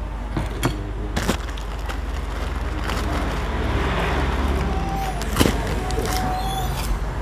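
Spoon or fork clicking against a ceramic plate in the first second or so, then crunching as a large crispy cracker is broken and bitten, over a steady low hum.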